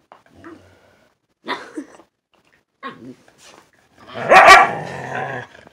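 Siberian husky puppies play-fighting, with short growls and barks; the loudest bark comes about four seconds in as they wrestle.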